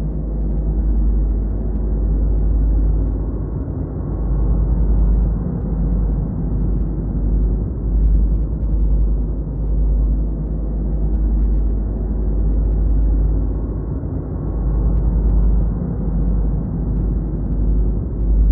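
Motorcycle engine running at road speed under a heavy, unsteady low wind rumble on the bike-mounted camera's microphone.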